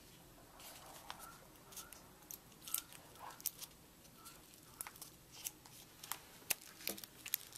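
Faint, irregular crinkles and ticks of paper being folded and pressed together with tape by hand.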